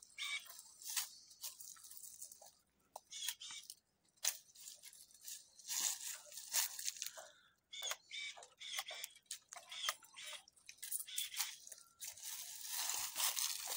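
Palmera cordless electric pruning shears cutting through tree branches: a series of short crunching snips at irregular intervals.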